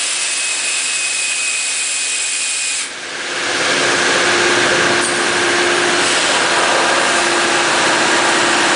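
Industrial parts-washing machine running: a steady hiss of spray or air with a faint whine. About three seconds in, it briefly dips and then comes back fuller and deeper, with a steady hum, as the machine changes stage.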